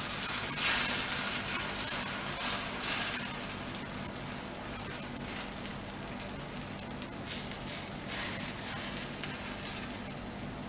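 Thin cucumber thalipeeth batter sizzling on a hot iron tawa while it is spread with a spoon, the sizzle swelling with a few strokes near the start and slowly dying down.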